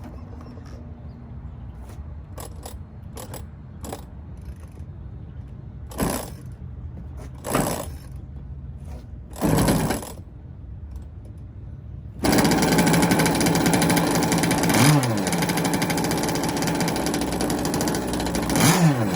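Gas-powered RC boat's small two-stroke engine being started: three short cranking attempts, then it catches about twelve seconds in and runs steadily with a buzzing note, dipping briefly in pitch twice.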